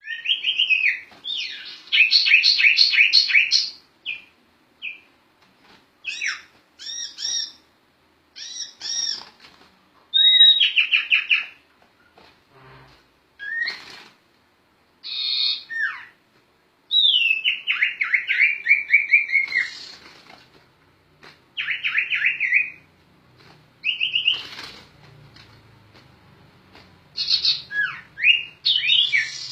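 A sirtu (sirpu) songbird singing continuously in the rolling 'gacor ngerol' style, in a string of short high phrases separated by brief pauses. The phrases mix rapid trills, quick repeated notes and notes that slide down in pitch.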